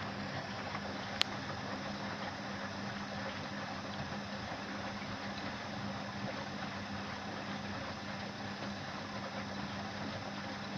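Zoppas POG 65 X washing machine in a wash cycle: its brushed motor turns the drum through the water with a steady hum and splashing. A single sharp click about a second in.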